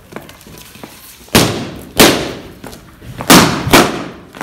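Inflated rubber balloons bursting as they are stamped on: four sharp bangs, a pair about half a second apart around a second and a half in, and another pair close together past three seconds.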